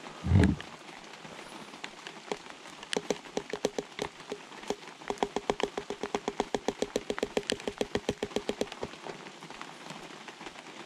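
Ground coffee being tipped and shaken from a bag into a glass French press. A dull thump comes right at the start, then a fast, even run of small ticks, about nine a second, through the middle.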